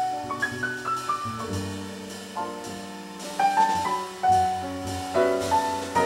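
Jazz piano trio playing: grand piano carries a melodic line of single notes and short runs, one falling run about half a second in, over double bass and a lightly played drum kit.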